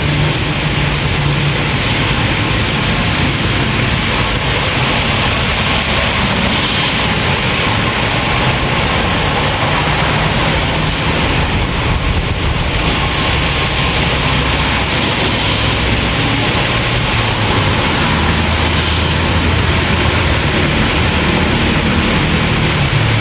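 Steady, heavy rain with an even hiss, a low rumble underneath that shifts slowly in pitch.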